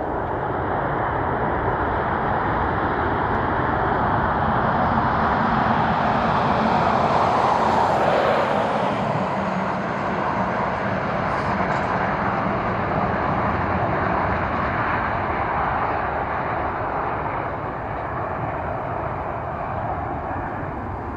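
Airliner passing close by: its engine noise builds to a peak about eight seconds in, drops in pitch as it goes past, then keeps going as a rumble that eases off near the end.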